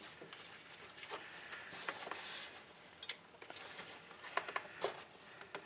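Faint scattered clicks and light rustling as hands handle a plastic three-pin wiring-harness connector, working at the plug to unclip it.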